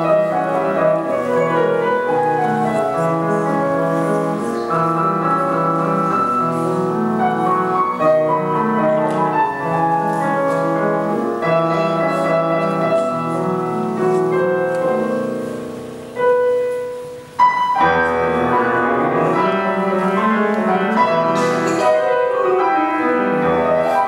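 Steinway grand piano played solo in a set of classical variations, with running passages of notes over sustained bass notes. About sixteen seconds in the playing dies away to a held note and a short break, then resumes with a loud chord.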